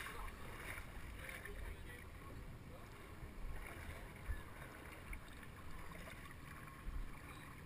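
Quiet outdoor sound on the water: wind rumbling on a helmet-mounted microphone, with a few dull low thumps and faint water lapping. The jet ski's engine is not running.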